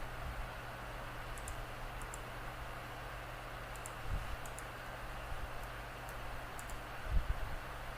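Computer mouse clicking: short double clicks of press and release, spaced a second or two apart, over a steady electrical hum and hiss. A couple of dull low thumps about four seconds in and near the end.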